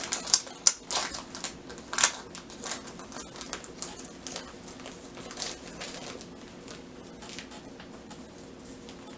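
Paper stickers and their wrapping being handled and unwrapped, with quick crinkles and sharp crackles, busiest in the first couple of seconds and thinning out after.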